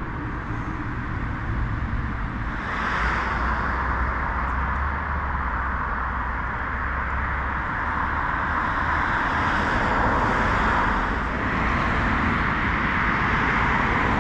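Continuous road traffic noise: a steady rush of passing cars with a low rumble underneath, getting louder about two and a half seconds in and then swelling and easing.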